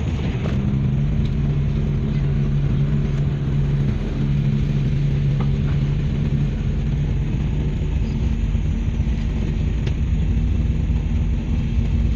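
Honda Civic sedan driving on the road, heard from the back seat: a steady engine hum and road rumble, the engine note shifting pitch a few times as it drives on.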